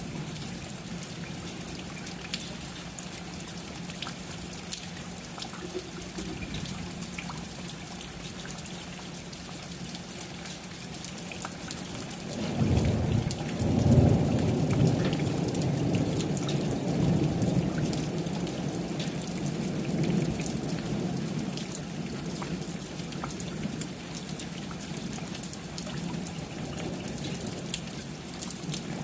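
Steady rain pattering with a roll of thunder: a low rumble builds about twelve seconds in, cracks loudest a second or two later, and dies away slowly over the following ten seconds.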